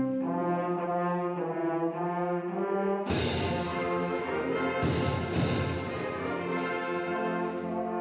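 Symphonic band playing a brass-led fanfare in sustained chords. About three seconds in, a loud percussion crash enters under the full band, with further hits about two seconds later.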